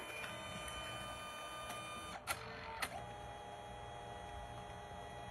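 Compact photo printer running with a steady, several-toned motor whine as it feeds the print. About two seconds in come two sharp clicks roughly half a second apart, and the whine then carries on at a different pitch.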